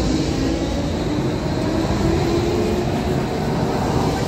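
Crotram TMK 2200 low-floor tram passing close by, a steady running noise with a low hum that rises in pitch.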